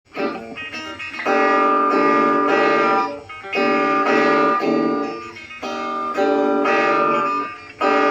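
Guitar music, played in phrases of a second or two with short breaks between them.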